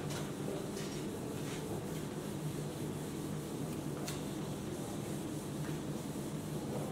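Whiteboard eraser rubbing across a whiteboard, wiping it clean, with a few faint brief scuffs. A steady low hum runs underneath.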